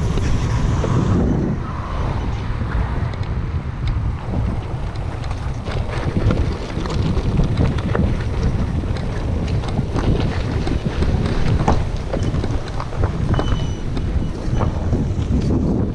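Wind buffeting the microphone while riding a loaded touring bicycle, with steady tyre rumble over rough asphalt and gravel and many small clicks and rattles from the bike.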